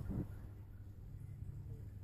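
Low steady hum of aquarium equipment, the air pump and filter running. A brief knock sounds right at the start.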